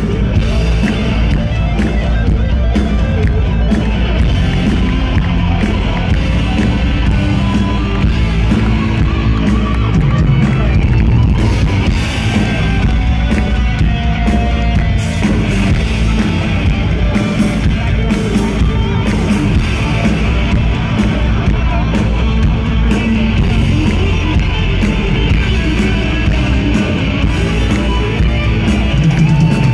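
Heavy metal band playing live at loud volume through a festival PA: electric guitar over bass and drums.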